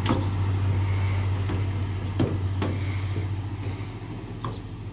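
Plastic tail-light housing of a Ford F-150 knocking against the truck body as it is worked onto its retaining posts: a few sharp knocks, two of them close together about two seconds in, over a steady low hum.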